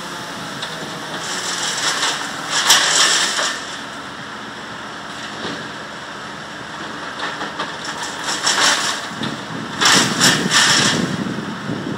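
An engine running, with louder surges of rushing noise about two and a half seconds in and again near the end.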